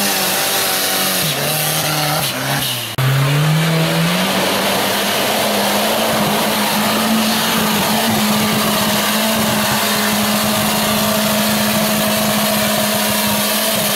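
Off-road buggy engine running at high revs as the buggy churns through deep mud. About three seconds in the sound breaks off sharply, then the engine pitch climbs and holds high and steady.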